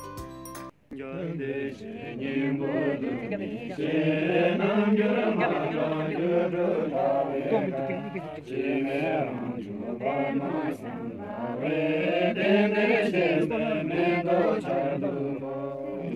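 Group of Buddhist monks chanting a prayer together in unison, starting about a second in after a short snatch of music breaks off.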